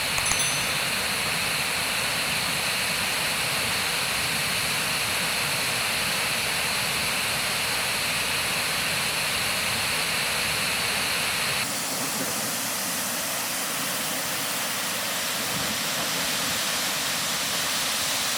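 Rain-swollen waterfall (Madden Falls) running hard: a steady, loud rush of falling water. Its tone shifts abruptly about two-thirds of the way through, then carries on just as steadily.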